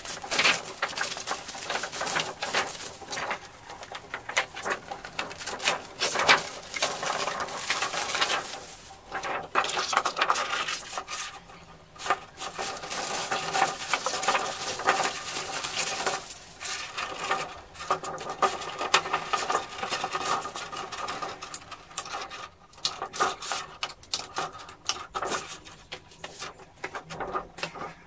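Thin clear plastic sheet crinkling and crackling as it is handled and folded into a see-through cake box, with small clicks and snaps of the creased plastic.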